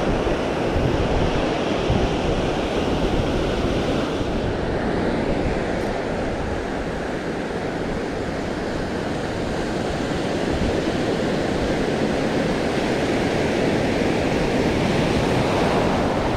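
Steady wind and sea noise: wind buffeting the microphone over the wash of open water, with no distinct events.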